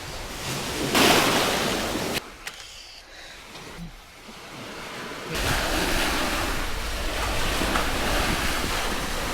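Sea waves washing onto a beach, with wind buffeting the microphone. A wave surges about a second in, the sound drops for a few seconds, then steady surf and wind noise return.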